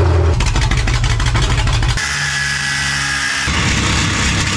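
Ford 302 small-block V8 running, fitted with new headers. About two seconds in, its sound settles into a steadier, even note for a second and a half, then turns rougher and pulsing again.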